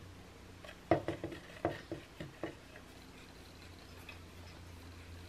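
A handful of small sharp clicks, starting about a second in and bunched over a second and a half, from a screwdriver turning the front lock bolt in a muzzleloading rifle's stock to loosen it. After that only a faint steady hum remains.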